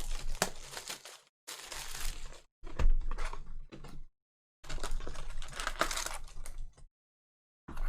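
A sealed box of trading cards being torn open and its wrapping and packs handled: crinkling and tearing of wrapper and cardboard in several bursts separated by short silent gaps.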